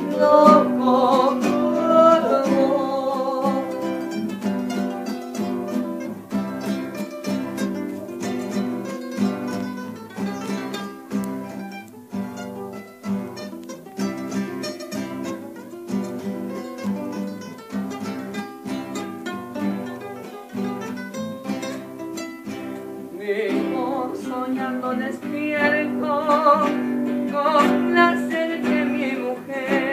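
Two nylon-string acoustic guitars playing a tonada cuyana, strummed chords in a steady rhythm. The playing grows louder and fuller for the last several seconds.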